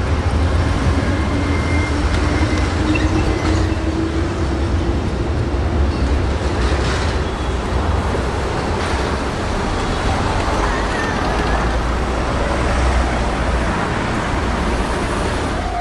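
Road traffic running steadily: a low rumble of engines with tyre noise. In the first few seconds one vehicle's engine rises in pitch as it accelerates.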